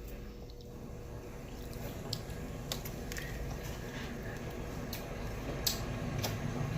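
Scattered wet clicks and squishes of boiled crawfish shells being cracked and peeled, over a low steady hum.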